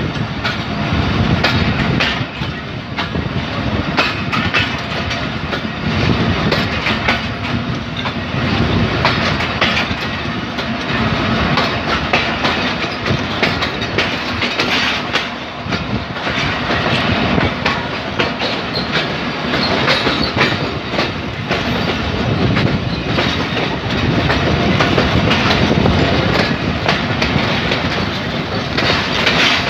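Jaffer Express passenger coaches passing close by at speed, with a loud, continuous rumble and the wheels clicking and clattering over the rail joints.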